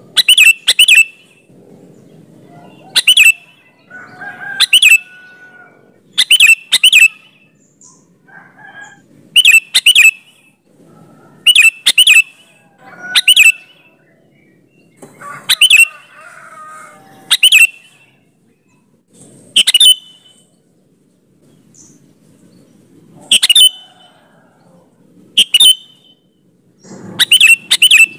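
Sooty-headed bulbul singing loudly: short, sharp calls, mostly in quick pairs or triplets, repeated every second or two.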